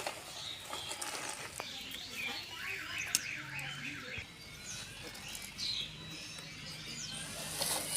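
A bird's warbling call, quickly wavering up and down in pitch for about two seconds, over faint outdoor background noise and a low steady hum.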